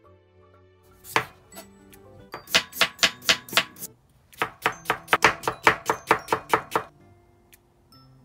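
A kitchen knife chopping a raw potato on a bamboo cutting board, slicing it thin and then cutting it into matchsticks. One cut comes about a second in, then two runs of quick, even strokes at about five a second, with a short pause between them.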